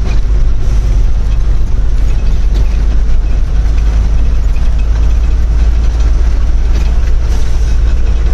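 Heavy truck's diesel engine running steadily on the road, a loud low drone with no change in pitch.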